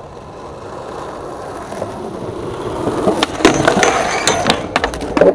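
Skateboard wheels rolling on asphalt, getting louder as the skater approaches. About three seconds in there is a pop, then the trucks grind down a metal handrail with a gritty, ringing scrape. A hard impact comes near the end as he comes off the rail.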